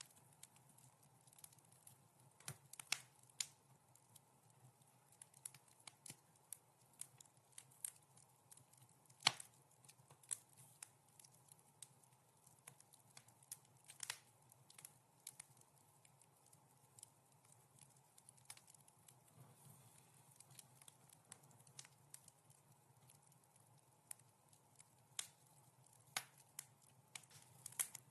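Wood fire crackling softly: scattered sharp pops and snaps at irregular intervals, with one louder pop about nine seconds in, over a faint steady low hum.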